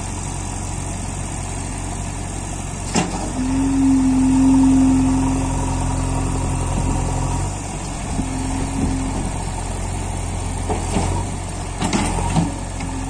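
JCB 3DX backhoe loader's diesel engine running under load while its front loader bucket is lowered and worked, with a steady whine that comes in about three seconds in, drops out and returns near the end. A sharp knock about three seconds in and a few clanks near the end.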